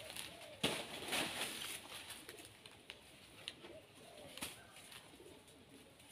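Machete chopping into a banana plant: a handful of sharp, separate chops, the strongest about half a second and a second in, with faint bird calls between them.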